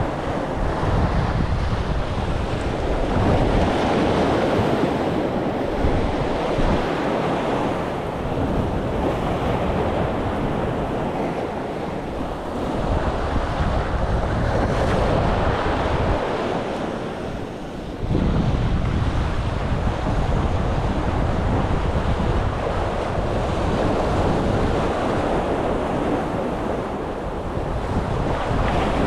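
Sea waves washing and foaming against the concrete blocks of a breakwater, swelling and easing in surges, with wind buffeting the microphone as a low rumble.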